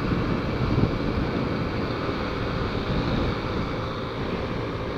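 Motorcycle ridden at a steady speed: the engine running evenly under wind noise on the microphone, with no change in pace.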